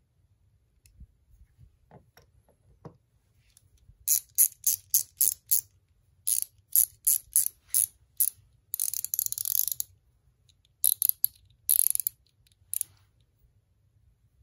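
Quarter-inch-drive ratchet clicking as the Nepros quick spinner on its head is turned by the fingers. After a few faint clicks, single sharp clicks come about three a second from about four seconds in, then a fast continuous ratcheting run near the middle as it is spun quickly, then a few short bursts and a last click.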